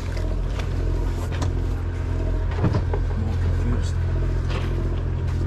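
Steady low drone of the party boat's machinery, with a few light knocks and clicks on deck.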